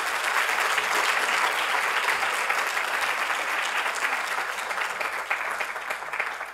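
Audience applauding: steady clapping from many hands that begins to die away at the end.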